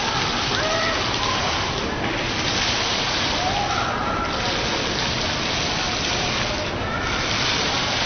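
Water fountain splashing and pouring continuously, its hiss swelling in surges of about two seconds, one after another.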